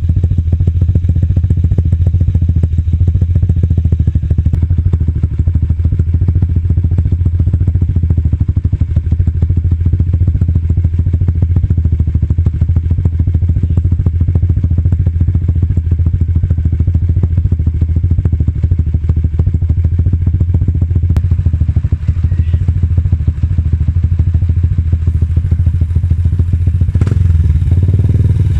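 Yamaha Sniper 150's single-cylinder four-stroke engine running steadily through a semi-open Mody5 power pipe with its silencer insert removed, giving a loud, deep, even exhaust beat. The tone changes briefly near the end.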